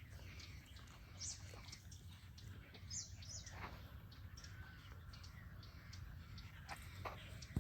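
Faint, scattered bird chirps, a few short high calls several seconds apart, over a steady low background hum.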